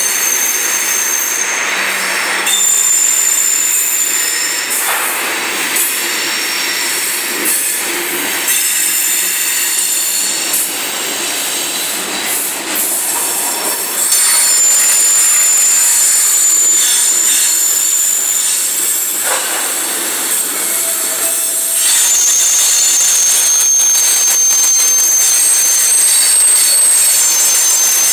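Loud, high-pitched screech of the steel wheels of loaded coal hopper cars rolling past, several squealing tones that switch pitch every few seconds over the steady rumble and clatter of the train. The screech grows louder about halfway through.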